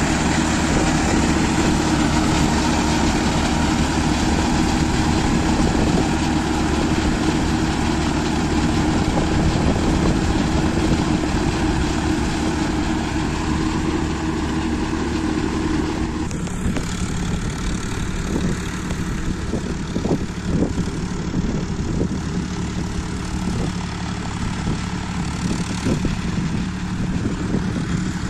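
Powertrac Euro 50 tractor's three-cylinder diesel running steadily under load while pulling a rotavator through wet paddy mud. About halfway through the engine note shifts and grows slightly quieter and more distant, with a few scattered knocks.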